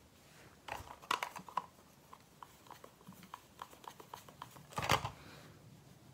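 Small hard objects being handled: a few sharp clicks and taps, then a run of light ticks, then a louder clatter just before five seconds in.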